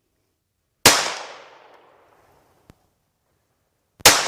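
Two shots from a Phoenix Arms .22 pistol, about three seconds apart, the second near the end. Each sharp crack is followed by an echo that dies away over about a second.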